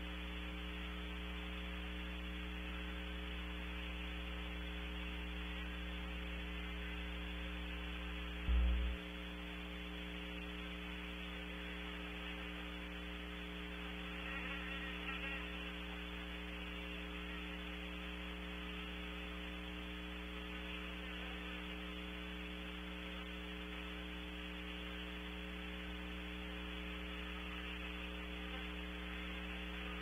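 Steady electrical mains hum with hiss, picked up by a wildlife camera's microphone, with one short low thump about a third of the way in.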